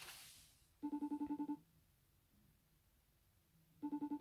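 Outgoing FaceTime call ringing while waiting for an answer: two short, fast-pulsing rings about three seconds apart. A faint rustle comes at the start.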